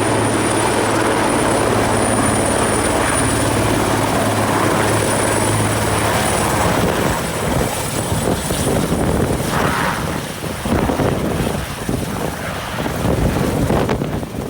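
Nissan Skyline R32 GT-R's RB26 twin-turbo straight-six engine running, with a steady low hum for about the first six seconds, then a rougher, more uneven sound.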